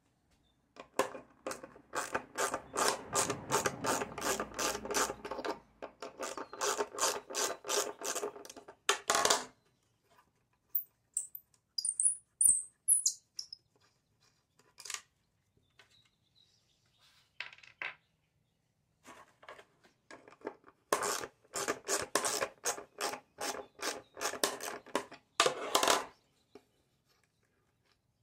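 A hand tool rasping back and forth against a fiberglass outboard engine hood, about three strokes a second, in two long runs with a quieter stretch of scattered clicks and light scrapes between.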